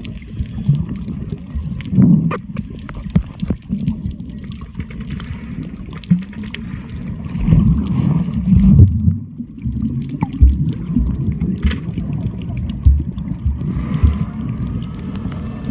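Water heard through a submerged camera: muffled low rumbling and gurgling that swells and fades, loudest about halfway through, with bubbling.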